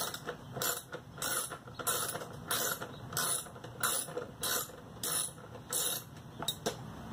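Socket ratchet wrench clicking in repeated back-and-forth strokes, about one and a half a second, while loosening a bolt on a lawn mower's drive belt cover.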